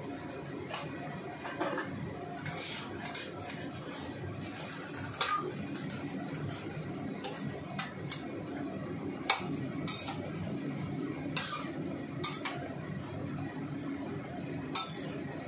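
Metal cooking utensil clinking and scraping against a steel wok as a heap of Chinese cabbage is stirred and turned, in irregular sharp knocks over a steady low rushing noise.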